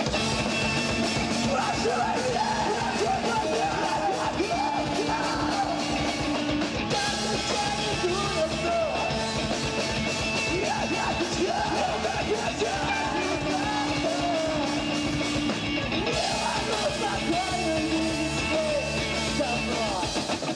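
Live emo rock band playing with sung and shouted vocals over a full band.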